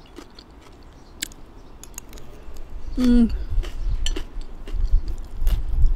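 Someone eating close to the microphone: a few light cutlery clicks against a bowl. About three seconds in comes a brief hummed 'mm', then chewing with irregular low thumps and clicks.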